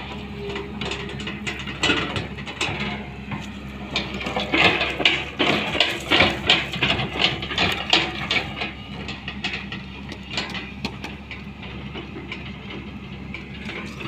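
Hyundai long-boom excavator's diesel engine running steadily while the bucket digs, with a cluster of rattling and scraping knocks from the bucket and soil about four to eight seconds in.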